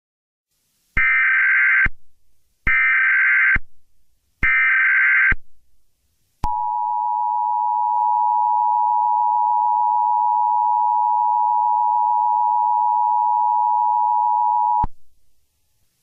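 Emergency Alert System SAME header: three short bursts of data tones, each about a second long, followed by the two-tone EAS attention signal (853 and 960 Hz), a steady tone held for about eight seconds that cuts off suddenly. This is the signal opening a Civil Danger Warning alert.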